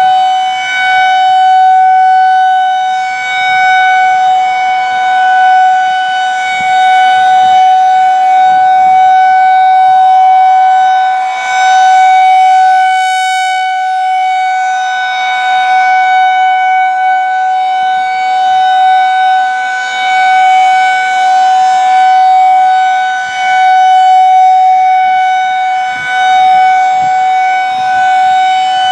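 Federal Signal 2001-SRNB rotating outdoor warning siren sounding the steady Alert signal at full speed: one held pitch that swells and fades as the rotating head sweeps past.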